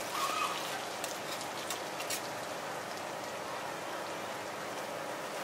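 Shredded potato cakes sizzling steadily on a flat metal griddle tray, with a few sharp taps and scrapes of metal spatulas on the pan in the first couple of seconds.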